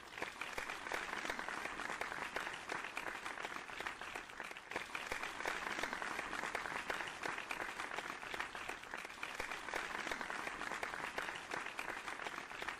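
Stock audience applause sound effect: a crowd clapping steadily, a dense crackle of many hands.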